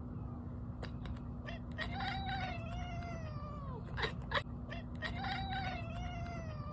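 Domestic cat calling at a squirrel: two long, wavering, meow-like calls, each sliding down in pitch at its end, with bursts of quick clicking chatter before and between them. This is the excited chattering a cat makes on seeing prey it cannot reach.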